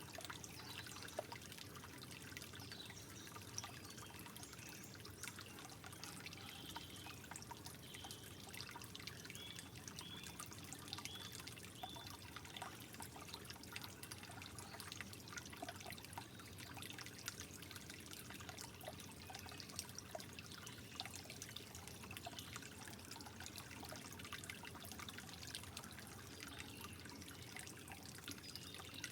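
Gentle water trickling steadily, with many small drips and plinks. A short run of brief high notes comes about ten seconds in.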